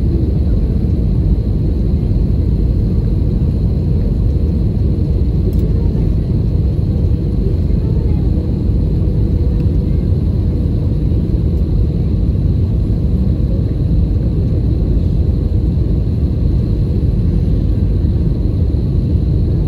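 Cabin noise inside an Airbus A320-family jet airliner descending on approach: a steady low rumble of airflow and engines, with a faint high whine.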